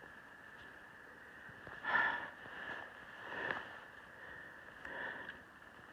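A hiker breathing hard and sniffing after a steep climb, four breaths about a second and a half apart over a steady hiss.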